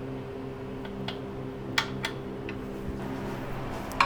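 A few sharp, separate metallic clicks from a 10 mm socket wrench working on the elliptical's tensioner pulley bolt, over a steady low hum.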